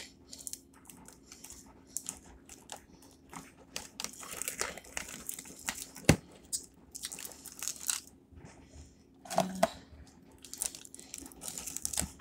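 Spoon scraping sour cream out of a plastic tub and dropping it into a glass mixing bowl: a run of soft, irregular scrapes and taps, with one sharp click about six seconds in.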